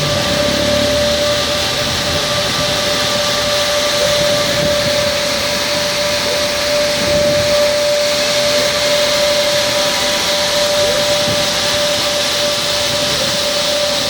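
Conveyor-belt automatic carpet washing machine running: a steady, loud machine noise with a constant whine over it.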